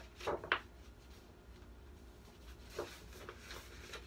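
A picture book being opened and its pages handled: two short paper rustles about half a second in and a softer one near three seconds, over quiet room tone with a faint low hum.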